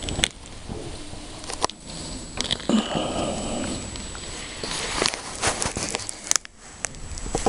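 Close-up rustling with scattered taps and knocks right at the microphone, irregular and uneven in loudness, from a monkey moving against the phone or the phone being handled.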